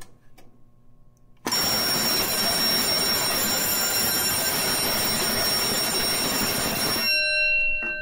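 Fire alarm bell ringing continuously after a manual pull station is pulled, a loud steady clangour starting about a second and a half in. It cuts off suddenly near the end, when the panel's power is shut off, leaving a fainter steady ringing tone.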